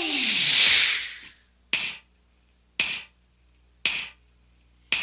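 Pop music ends on a falling tone and a fading hiss. Then come four sharp, single clicks about a second apart, each dying away quickly, with near silence between them.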